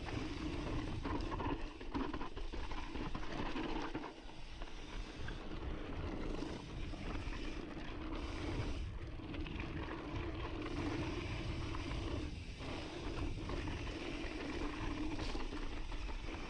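Intense Sniper cross-country mountain bike ridden fast down a dry, dusty dirt trail, picked up by the onboard camera: a steady rush of tyres rolling over loose dirt with frequent small knocks and rattles from the bike over bumps.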